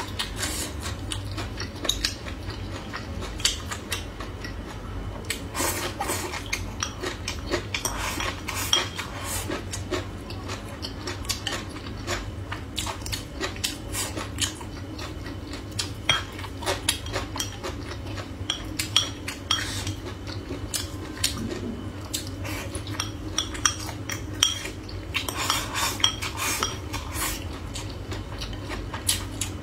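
Mouth-close eating: wooden chopsticks clicking against a ceramic rice bowl and plate, with chewing of crisp stir-fried bamboo shoots and pork. A steady low hum runs underneath.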